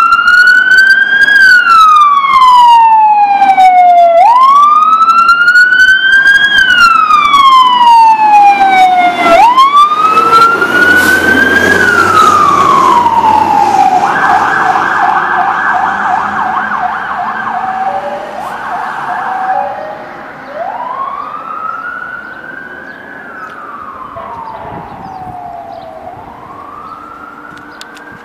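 Fire engine siren wailing in repeated cycles, each rising quickly and falling more slowly. About halfway through it switches twice to a fast yelp, then returns to the wail and fades as the engine drives away.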